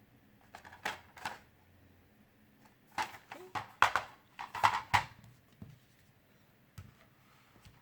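DVD packaging being handled: a few sharp clicks and taps with rustling, two about a second in and a denser cluster from about three to five seconds in.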